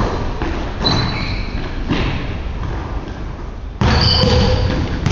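A basketball thudding on a hardwood gym floor, with sneakers squeaking during play and a louder burst of activity near the end. The sounds echo in the large gym.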